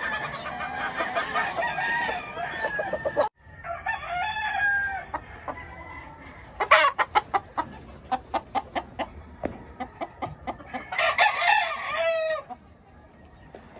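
Gamecock roosters crowing several times, with a run of quick short clucks in the middle. The calling breaks off abruptly about three seconds in and picks up again.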